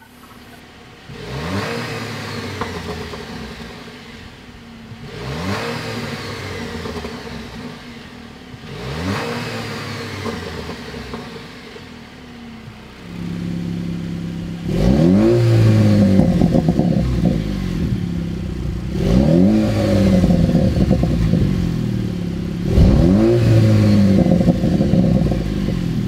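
Jeep Wrangler JL's 2.0-litre turbocharged four-cylinder at high idle, revved three times through a quieter exhaust. About halfway through the sound steps up louder, and three more revs follow through the AWE Tread Edition cat-back exhaust, each rising and falling back.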